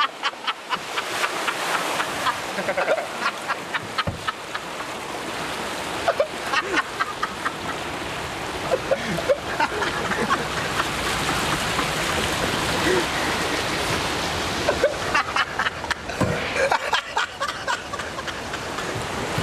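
Rushing, churning water of a river rapids ride around the raft, with many short sharp slaps of water against the boat, thickest in the first few seconds and again near the end.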